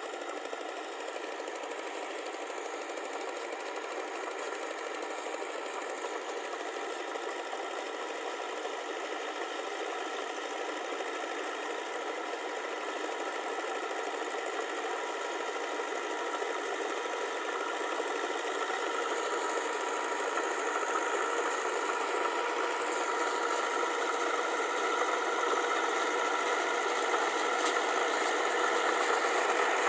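Massey Ferguson tractor's diesel engine running steadily as the tractor pulls through a flooded paddy field on a steel cage wheel, growing louder as it comes closer.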